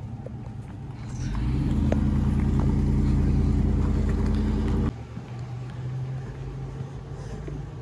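A large truck's engine running close by, loud and steady from about a second in, cutting off abruptly about five seconds in; a low hum remains afterwards.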